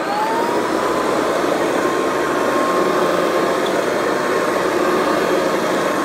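Hoover Convertible upright vacuum cleaner just switched on: its motor whine rises and settles at a steady pitch within the first second, then it runs steadily over a rug.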